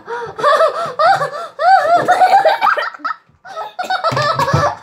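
Children laughing and giggling in high voices, in repeated bursts with a brief pause about three seconds in.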